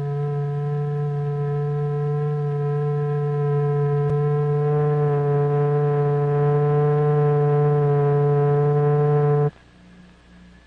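Steady electronic tone with many overtones, the sound used to vibrate a cymatics plate or membrane, slowly getting louder and then cutting off suddenly about nine and a half seconds in, leaving a faint hum. A single click about four seconds in.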